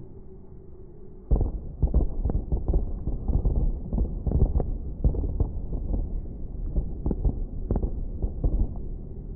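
Fireworks shells bursting in a rapid, overlapping volley, starting about a second in. The audio is slowed down, so the bangs come out as deep, dull thuds.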